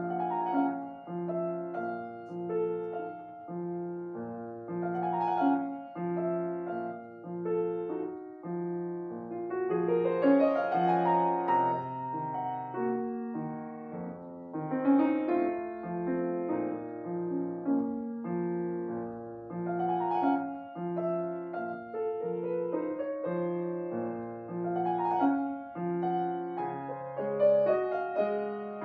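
Solo piano playing a classical piece: evenly repeated low bass notes and chords, with rising runs of notes a few times.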